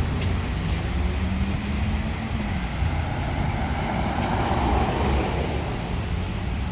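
Road traffic: a steady low rumble of vehicle engines, with a passing vehicle swelling to its loudest about four to five seconds in.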